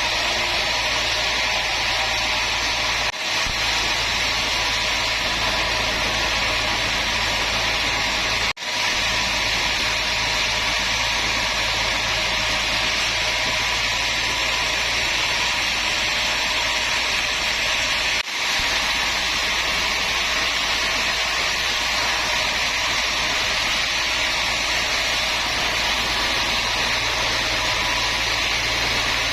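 Woodworking machine running steadily with an even whirring noise, broken by three very short dropouts.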